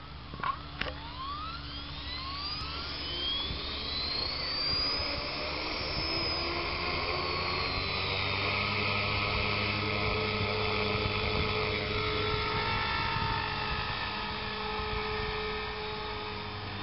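HK 450 electric RC helicopter spooling up: its Align 430XL brushless motor and drivetrain whine rises in pitch over the first five or six seconds as the rotors come up to speed, then holds a steady high whine with rotor noise through lift-off. A couple of sharp clicks sound just after the start.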